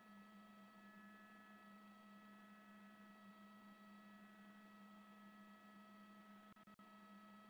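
Near silence with a faint, steady hum made of several held tones. The sound cuts out briefly twice near the end.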